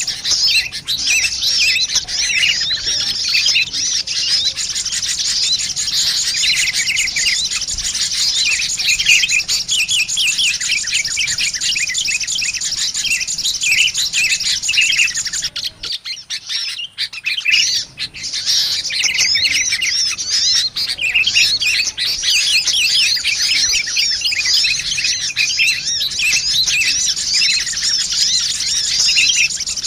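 Dense, continuous high-pitched chirping and twittering of a crowd of small birds: sunbirds mixed with sooty-headed bulbuls, as played for a bird-lure call. The chirping thins out briefly about halfway through, then resumes.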